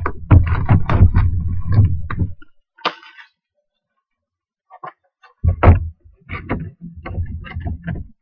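Cardboard trading-card hobby box being handled on a table: a quick run of thuds and knocks for the first two seconds or so, then a gap of about three seconds. Then more bumps and papery rustling as the box lid is opened.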